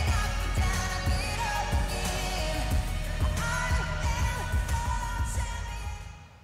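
Soundtrack song with a sung vocal over a heavy bass beat, fading out near the end.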